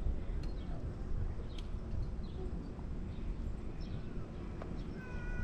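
Outdoor ambience: a low rumble of wind on the microphone with a few faint bird chirps. Near the end a long held note starts, sliding slightly down.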